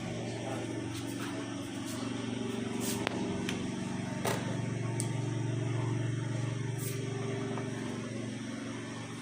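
A motor running steadily: a low hum made of several evenly spaced tones that swells a little midway and eases near the end, with a few faint sharp clicks over it.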